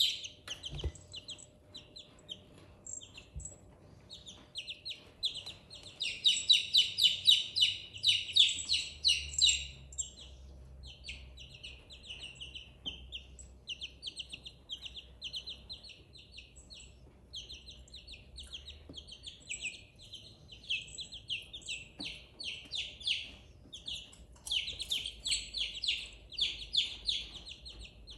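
Baby silkie chicks peeping: many short, high-pitched cheeps in quick runs, busiest from about six to ten seconds in and again in the last few seconds.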